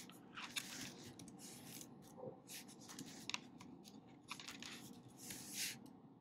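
Typing on an Apple MacBook keyboard: irregular soft key clicks and brushing sounds of fingers on the keys and palm rest, some strokes a little louder than others.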